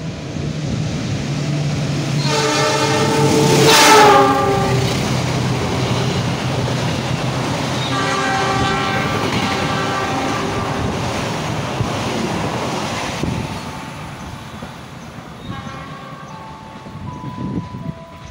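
Argo Parahyangan intercity passenger train, hauled by a diesel locomotive, running through the station. Its multi-tone horn sounds twice, a long blast about two seconds in and another about eight seconds in, over the engine and the rumble and clatter of the coaches on the rails. The loudest moment is about four seconds in as the head of the train passes, and the sound fades after about thirteen seconds as the train goes away.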